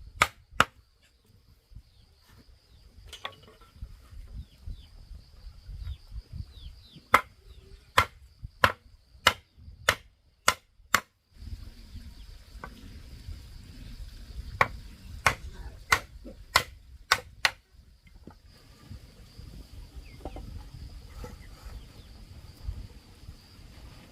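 Sharp blows of a hand tool striking, in runs of several about one and a half a second apart, with pauses between runs. A steady high-pitched drone sounds behind them.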